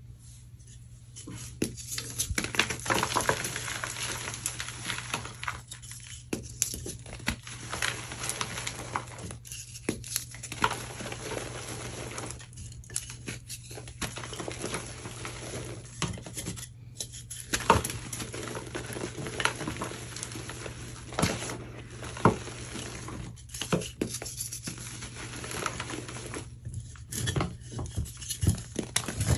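Hands crushing and crumbling wedge-shaped blocks of powdery gym chalk: dense dry crunching and crackling with sharp snaps, stopping briefly several times.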